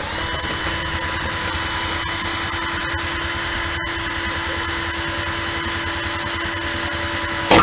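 Power drill running at a steady high speed for several seconds, its motor whining evenly, then stopping near the end with a sharp knock.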